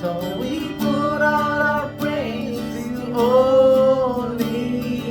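Contemporary worship song: a voice sings long held notes over strummed acoustic guitar.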